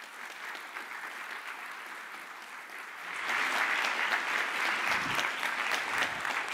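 Audience applauding, growing louder about three seconds in.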